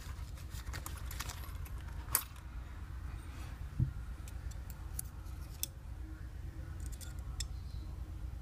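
Small steel pistol parts and tools clicking and clinking as a 1911 pistol is taken apart by hand: scattered light clicks, a sharper one about two seconds in and a dull thump near four seconds in.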